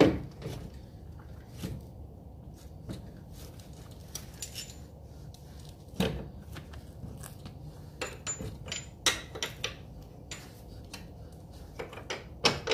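Scattered metallic clinks and knocks of tools and suspension parts being handled at a car's front wheel hub and steering knuckle during a strut refit, with a sharper knock about six seconds in and quicker runs of clinks later on.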